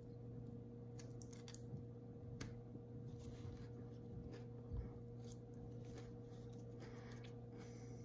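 Faint, irregular wet clicks and crunches of a person chewing a fresh hot pepper, over a steady low electrical hum.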